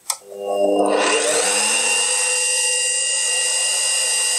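A click of the rotary main switch, then the Bosch PBD-40 drill press's motor and spindle spin up over about a second and settle into a steady whine, running with no load at about 1,600 rpm.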